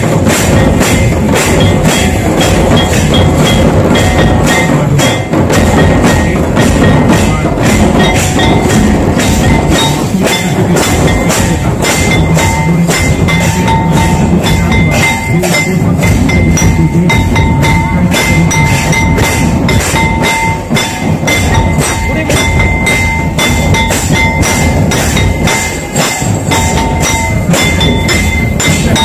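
A group of large barrel drums beaten fast with pairs of sticks in a dense, steady rhythm: Santhal drumming for the Baha dance. A high held note sounds on and off from about twelve seconds in.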